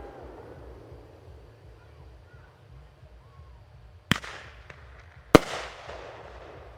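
Fireworks shells bursting: the echo of a burst dying away, then two sharp reports about a second apart, each echoing as it fades, with a few faint pops between them.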